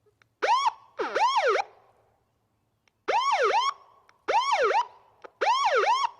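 Cartoon siren-whistle sound effect: five short wailing bursts, each a quick rise and fall in pitch, with short gaps between them.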